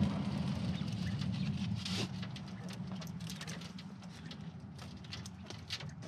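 Feed being handled at a galvanized feed can: a low rustling noise that fades away, with scattered light clicks and taps and a sharper tap about two seconds in.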